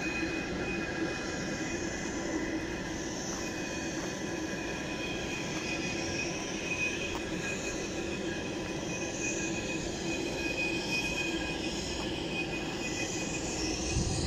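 Steady high whine over a low hum, the sound of running aircraft or ramp machinery on an airport apron, with some low rumble.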